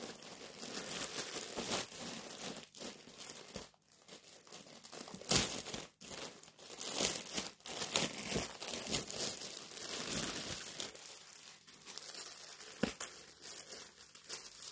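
Crinkling and tearing of a clear plastic garment bag as it is opened and a shirt is pulled out, an irregular run of crackles and rustles with sharp snaps.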